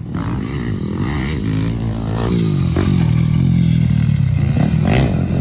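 Dirt bike engine running and revving, its pitch rising and falling with the throttle and growing louder over the first few seconds.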